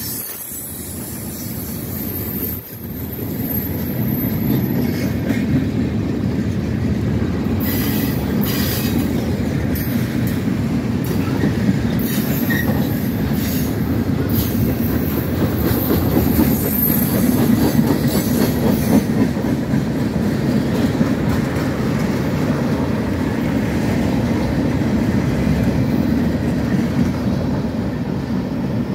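Freight train cars rolling past at speed: a steady heavy rumble of steel wheels on the rails, with a thin high wheel squeal a few seconds in and scattered sharp clicks of the wheels over the rail joints.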